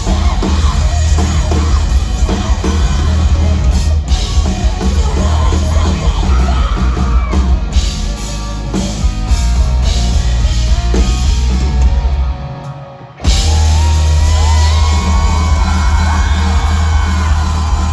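Live rock band playing loudly: drums, guitars and vocals. The sound dips briefly about twelve seconds in, then the full band comes back in.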